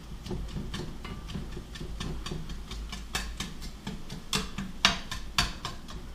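A cooking utensil clicking and knocking irregularly against a pan on the stovetop, with a few louder taps in the second half.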